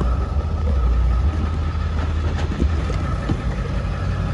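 Ford 7.3L turbo-diesel V8 idling steadily with a low rumble, with a few faint clicks about halfway through.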